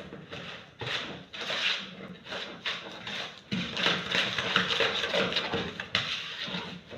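Wooden spoon beating butter and sugar in a plastic mixing bowl by hand: repeated, irregular scraping strokes as the mixture is creamed.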